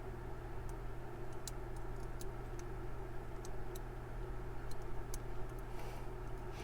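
Faint, irregular clicks and ticks of a lock pick working the pins inside a Paclock PL1 laminated steel padlock, over a steady background hum.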